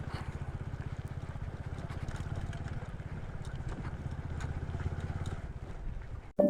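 Motorcycle engine running at low revs, an even pulsing beat with faint rattles, which cuts off abruptly near the end.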